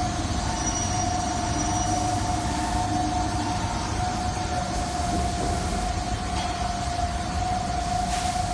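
Steady running noise of wood grain transfer equipment: a constant high whine over a low rumble, unchanging throughout.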